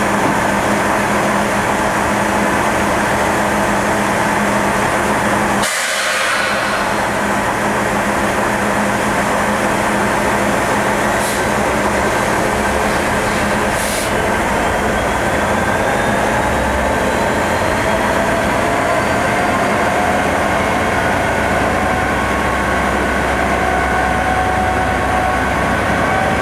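Class 66 diesel locomotive's EMD two-stroke V12 engine running at close range, a steady hum. From about halfway several tones slowly rise in pitch into a whine as a train gets under way.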